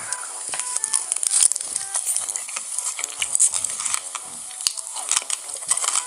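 Close-miked ASMR eating sounds: a rapid run of crisp crackles and crunches from chewing.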